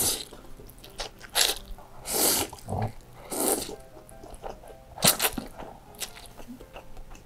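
A person slurping spicy chili-oil egg noodles (bakmie) with chopsticks, about six hissing sucks a second or so apart, with chewing between them.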